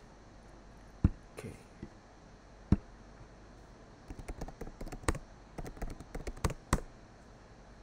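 Computer keyboard: a couple of separate key clicks, then a quick run of keystrokes about four seconds in as a short search is typed.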